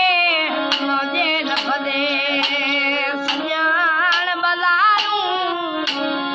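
A boy singing an ornamented, wavering melody over a harmonium's steady held reed chords. His voice stops near the end, leaving the harmonium sounding on its own.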